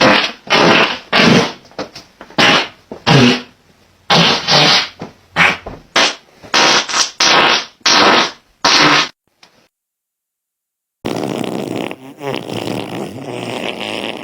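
A rapid run of about a dozen short farts, then, after a pause of about two seconds, one longer drawn-out fart lasting about three seconds.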